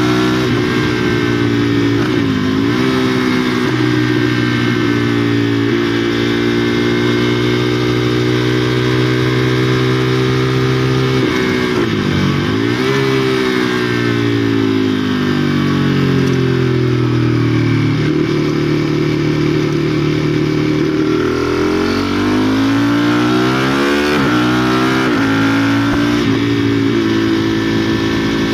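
KTM Duke 390's single-cylinder engine with a decat exhaust, heard from on board while riding. The engine note rises and falls with the throttle, dipping sharply and recovering several times. Midway it falls away slowly as the bike eases off, then climbs again.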